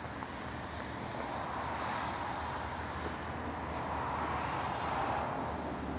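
Outdoor road traffic noise, a steady hiss of tyres that swells twice as vehicles pass.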